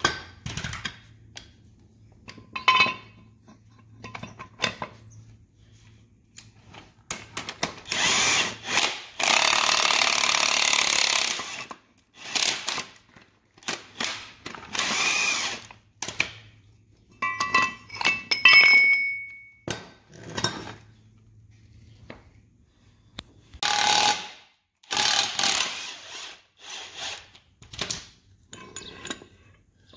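Cordless impact wrench hammering in several bursts, the longest about three and a half seconds, as it turns the screw of a C-frame ball joint press to push out a ball joint. Short metallic clinks and rings of the press adapters and tools come between the bursts.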